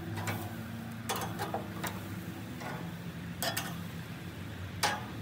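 Metal tongs clicking and scraping against the grates of a Weber gas grill as barbecued ribs are picked off onto a plate: about eight irregular sharp clicks over a steady low hum.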